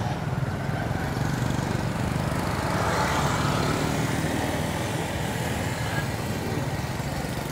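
Small motorbike engine running steadily while riding, with wind and road noise.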